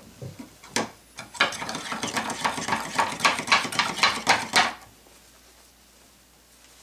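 Screwdriver working in a metal paint can, a quick run of metallic scraping and clinking against the tin for about three seconds that then stops.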